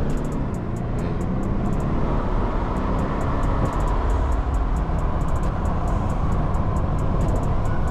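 A BMW F30 328i's turbocharged four-cylinder engine and tyre noise, heard from inside the cabin while driving. The engine note rises gently over the first couple of seconds, then holds steady.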